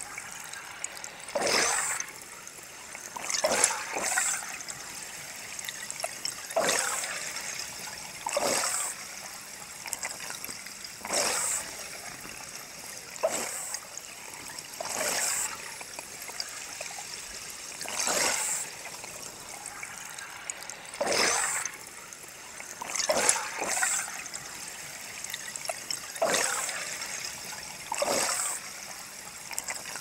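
Scuba regulator exhalation bubbles, sped up fourfold, so each breath comes as a short bubbling gush about every two seconds over a steady underwater hiss.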